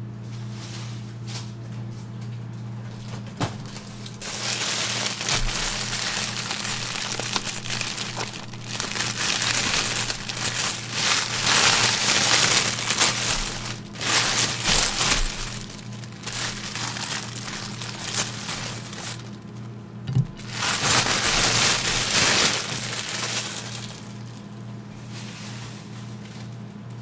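Plastic bread bag crinkling and rustling in irregular bursts as a loaf of bread is taken out of it, over a steady low hum.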